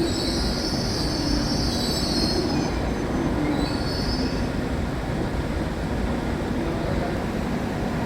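A Hokuriku Shinkansen train running on the line with a steady rumble, and a high-pitched wheel squeal for the first two or three seconds and again briefly about four seconds in.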